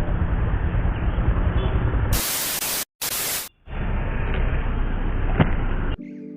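Steady low rumbling noise, broken about two seconds in by a loud burst of static hiss lasting about a second and a half, cut off abruptly with a brief dropout in the middle.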